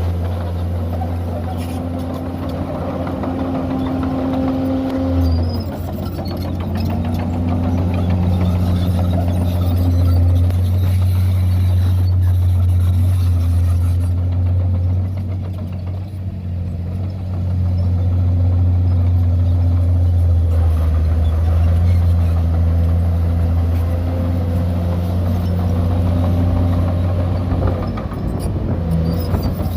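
Heavy diesel engine of earthmoving machinery running continuously. Its pitch rises and falls every few seconds as the load changes.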